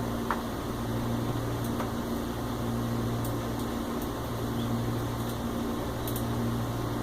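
A steady low mechanical hum, like a running fan, with a few faint light clicks scattered through.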